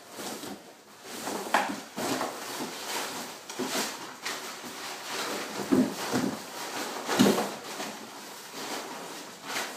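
A fabric rucksack being lifted out of its packaging and handled: irregular rustling, with a few sharp knocks and clicks now and then.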